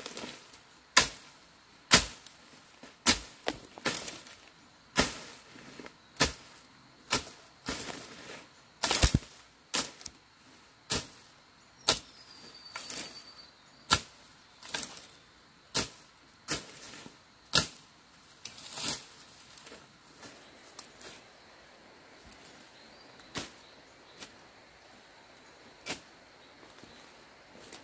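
Machete strokes slashing through bamboo and brush: sharp swishing chops about once a second, which thin out and grow fainter after about twenty seconds.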